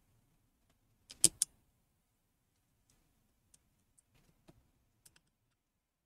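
Sharp clicks and light taps of small laptop parts being handled during disassembly: three quick clicks close together about a second in, then a few faint ticks.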